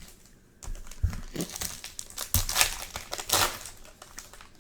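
Crinkling of a Topps Chrome trading-card pack wrapper being handled and torn open, a run of short rustles that is loudest near the middle.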